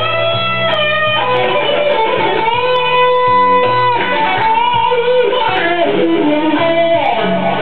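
Guitar playing a slow blues lead over a backing track with a bass line. The lead has long held notes, and near the end a run of notes slides downward.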